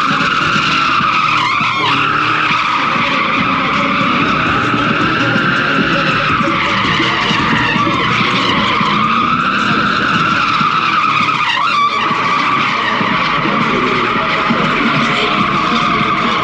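Car drifting, its tyres squealing continuously with a pitch that wavers slowly up and down, over the engine's steady noise.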